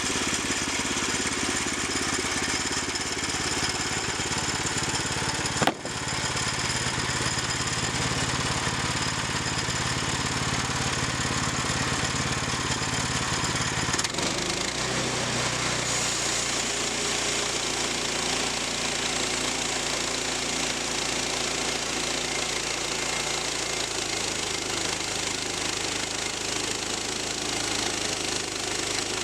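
Small sawmill's gasoline engine running steadily as logs are milled into planks. A sharp click sounds about six seconds in, and the engine's tone changes about halfway through.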